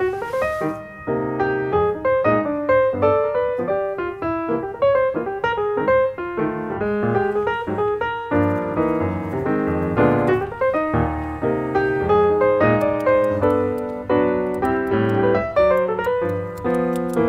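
Piano music, a continuous stream of notes.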